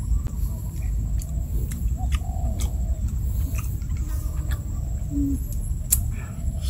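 Outdoor ambience: a steady low rumble with scattered small clicks, and a single short, low hoot-like bird call a little after five seconds in.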